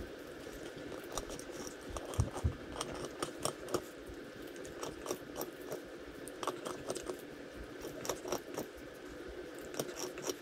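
A puppy gnawing on a large chew bone: irregular clicks, crunches and scrapes of teeth on the bone. A faint reedy note runs under it, the puppy's breathing likened to a harmonica.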